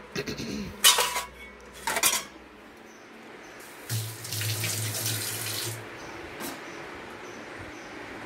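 Stainless steel kitchen bowls and pots clank together twice. Then a tap runs for about two seconds with a low hum, before settling to a quieter steady hiss.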